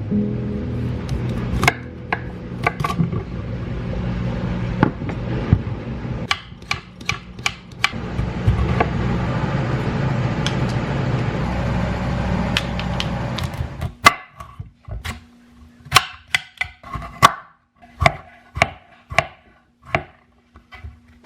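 A steady rushing noise with scattered clicks stops about 14 seconds in, and is followed by a run of about a dozen sharp, irregular knocks and taps.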